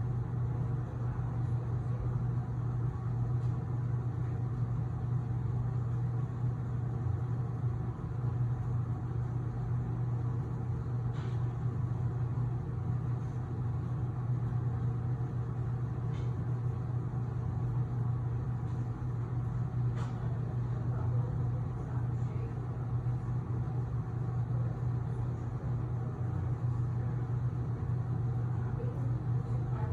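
Steady low mechanical hum with a few faint, brief clicks.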